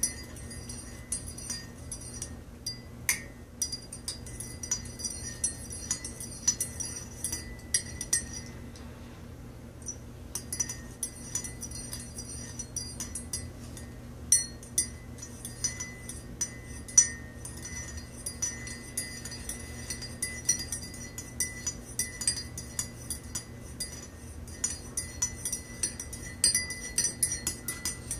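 A metal teaspoon stirring coffee in a ceramic mug, clinking against the mug's sides in an irregular run of light chinks, with a short lull about nine seconds in. A steady low hum runs underneath.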